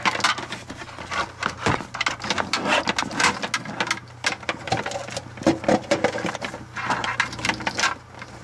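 Network cables and their plastic RJ45 plugs being handled and pulled loose around a small ethernet switch: a dense run of irregular clicks, scrapes and rustles.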